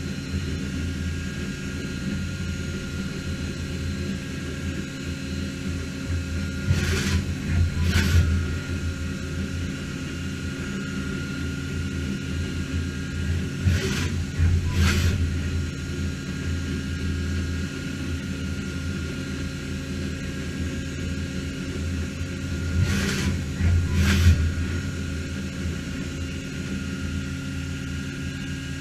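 Matsuura MAM72-35V five-axis CNC machining center running: a steady low hum with a thin higher whine over it. Three times, a pair of short rushes of noise about a second apart breaks in.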